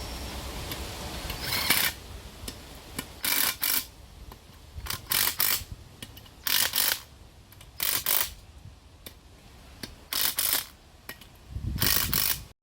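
Ratchet spanner working bolts in short bursts of clicking, about seven strokes one to two seconds apart, while a narrowboat's new drive plate and PRM 150 gearbox are bolted in.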